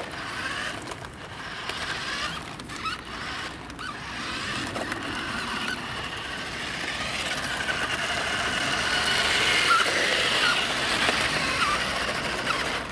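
Virhuck Stunt X toy RC stunt car running, its two small electric motors and gearbox whining as it drives over asphalt and onto a ramp. The whine gets louder and higher about two thirds of the way through.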